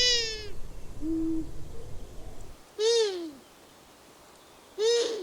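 Long-eared owl giving its whiny squeak, a call that rises and falls in pitch. It is heard three times, about two seconds apart, with a short low steady note about a second in.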